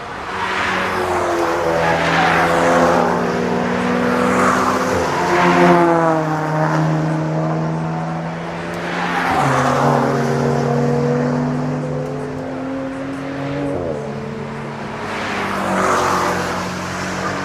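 Several GT race cars passing one after another at racing speed, each swelling loud and fading, about four passes. The engine notes hold steady and change pitch in steps as the cars shift gear.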